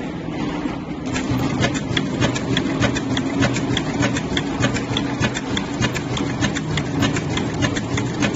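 Topeagle heavy-duty computer-controlled sewing machine stitching thick fabric: a steady motor hum, with rapid, regular clicking of the needle mechanism that starts about a second in.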